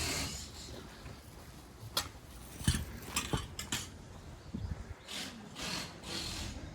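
Footsteps scuffing along a walking path, with a few sharp clicks and knocks about two to four seconds in.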